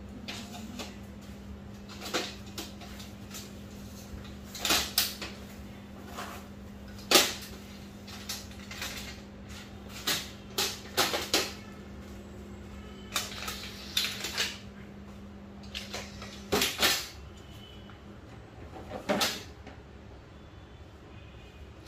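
Aluminium frame bars of a folding projector screen clacking and knocking as the frame is opened out on a tile floor, in irregular sharp clatters, the loudest about seven seconds in. A steady low hum underneath stops about three-quarters of the way through.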